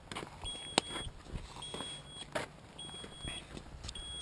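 High electronic warning beep repeating steadily, about one beep a second, each beep just over half a second long, with a few faint clicks and knocks between beeps.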